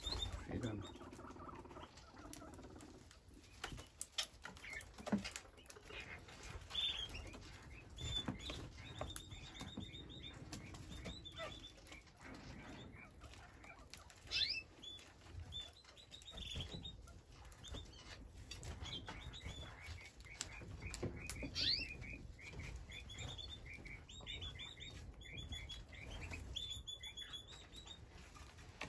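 Red-crowned parakeets (kākāriki) feeding at a seed tray: scattered sharp clicks of seeds being cracked and shuffled, with strings of quick, high chirps several times.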